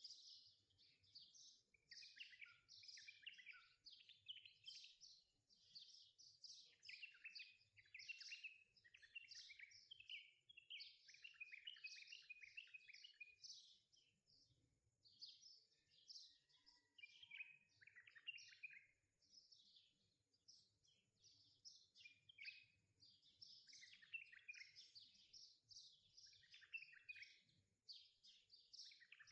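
Faint birdsong: many quick, high chirps and twitters overlapping without a break.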